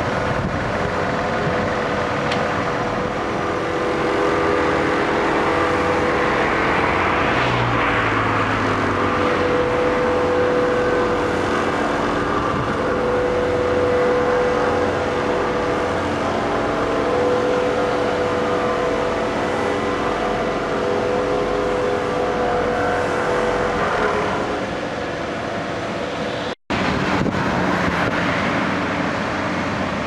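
Hamm HD 150 tandem asphalt roller's diesel engine running steadily as it works, with a whine that comes and goes. Near the end the sound drops out for a moment and an asphalt paver's diesel engine takes over.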